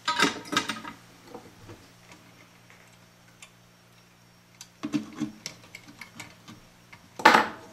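Small clicks and taps of pliers and a capacitor's wire leads against the metal chassis of a tube radio receiver while a new capacitor is fitted: a cluster at the start, more about five seconds in, and a short louder rustle near the end. A faint steady hum sits underneath.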